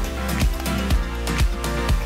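Background electronic dance music with a steady thumping beat, about two beats a second.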